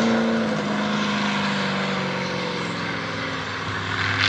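Off-road race truck engine held at high revs, its pitch easing slightly down as it slowly fades. A deeper engine note comes in near the end.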